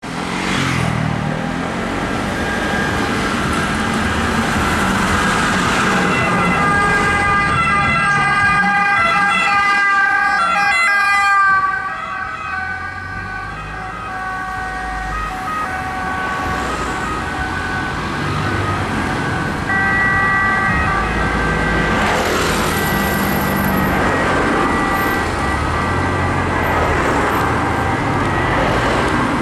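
Emergency sirens of a Red Cross Renault Master ambulance and a Ford Kuga medical car sounding together on an urgent run, steady tones stepping between pitches, over engine and traffic noise.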